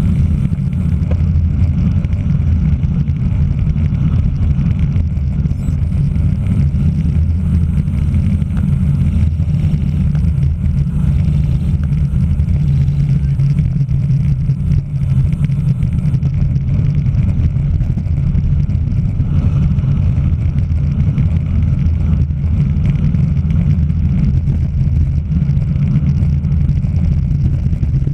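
Wind buffeting the microphone of a camera riding along on a racing bicycle at speed: a loud, steady low rumble.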